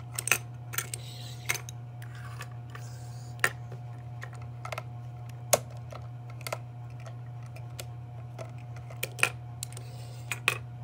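Scattered sharp plastic clicks and knocks as small toy trash carts are handled and tipped against the rear hopper of a 1:34 scale model rear-loader garbage truck, over a steady low hum.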